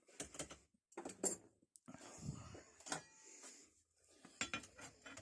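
Metal clicks and scraping from a key being worked in a rusty, stiff old padlock, in several short bursts.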